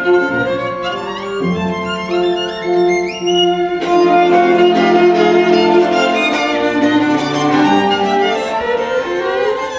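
Solo violin playing with orchestral string accompaniment. About three seconds in, the violin plays a fast rising run, then violin and orchestra hold longer notes.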